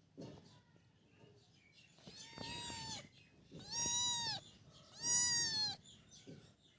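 Kitten meowing three times, each a long, high meow of about a second that rises and falls in pitch.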